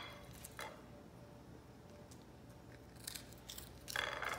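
Faint, crisp clicks and crunches from small dry crackers on a plate being picked at and eaten, with a cluster of them about three seconds in and a louder rustle near the end.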